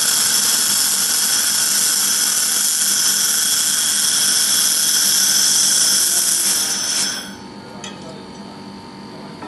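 1500 W laser welding machine running a continuous weld along a stainless steel seam: a loud, steady high hiss with a thin whine, which cuts off about seven seconds in, leaving a faint low hum.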